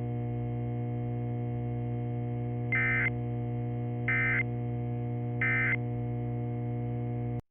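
Three short, buzzy bursts of the EAS/NOAA Weather Radio SAME end-of-message digital code, each about a third of a second long and spaced a little over a second apart. They sit over a steady electronic hum that cuts off abruptly just before the end.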